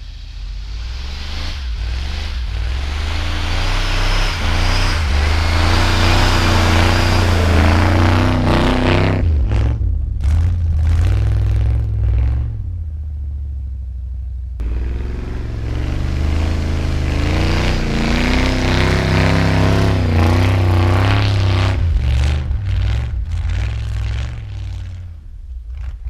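1978 Ford Bronco's V8 engine revving hard under load as the truck pushes through deep snow, with a broad rushing noise over it. The revs drop back about nine seconds in, then climb again from about fifteen seconds.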